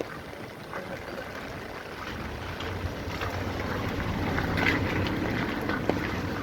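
Heavy rain falling, with a motor vehicle's engine running close by and growing louder from about two seconds in.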